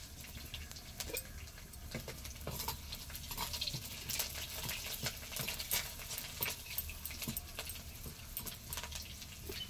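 Garlic sizzling and crackling in hot oil in a kadhai for a tadka, with a ladle stirring it around the pan.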